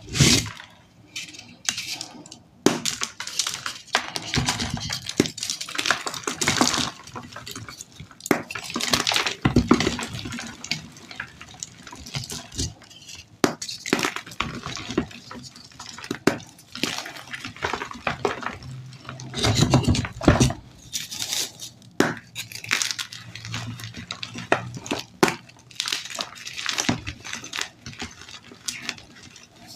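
Blocks of dyed gym chalk squeezed and crushed by hand, crunching and crumbling into powder in an irregular run of crackles, with a loud first crunch at the start.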